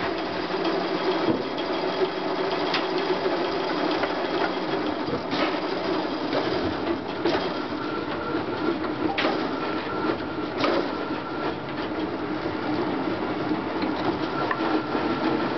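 Rotary veneer peeling lathe with knurled drive rollers running with a steady mechanical clatter, broken by a few sharp knocks.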